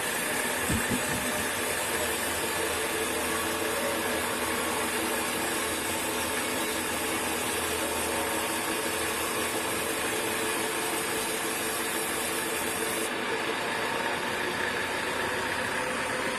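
Sawmill machinery running steadily, a constant mechanical hum with several steady tones, and a short low knock about a second in.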